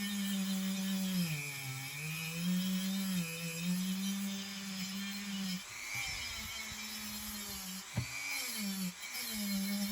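A small electric power tool's motor runs with a steady whine, its pitch sagging and recovering a couple of times. Past the middle it falters into a rougher, uneven noise with a sharp click, then picks back up to its steady whine near the end.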